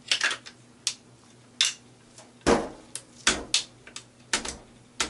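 Metal clicks and knocks of an AR-15's upper and lower receivers being fitted together and the takedown pins pushed home: a string of about a dozen sharp, irregularly spaced clicks, the heaviest knocks coming between about two and a half and four and a half seconds in.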